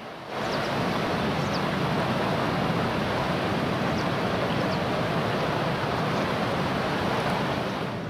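Steady rushing of whitewater as the Orange River churns through its rocky gorge at Augrabies Falls. It cuts in suddenly just after the start and falls away at the end.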